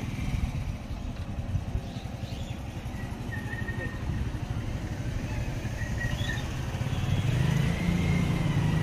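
Outdoor ambient noise: a steady low rumble, like wind on the microphone or distant traffic, growing slowly louder, with a few faint high chirps.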